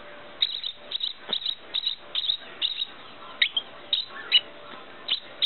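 A baby bird chirping while being hand-fed: short, high-pitched cheeps, often in quick pairs or threes, a couple of times a second.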